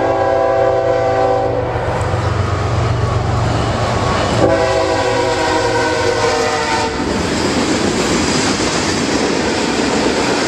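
A BNSF freight train's GE diesel locomotive sounding its air horn in two long blasts, the second starting about four and a half seconds in, over the low rumble of the diesel engines. After the horn stops, the steady rolling noise of tank-car wheels on the rails.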